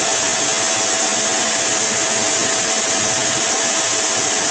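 Pet grooming dryer running: a steady rushing blow of air with a constant whine underneath.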